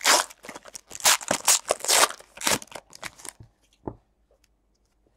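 Foil wrapper of a Panini Contenders basketball card pack being torn open and crinkled: a rapid run of rips and crackles for about three and a half seconds, then one short tap as the cards come out.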